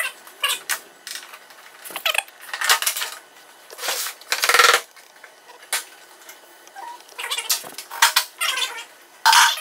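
Plastic motorcycle fairing panels being handled and pulled off a crashed race bike: irregular clatters, rustles and scrapes, the loudest about four and a half seconds in and again near the end.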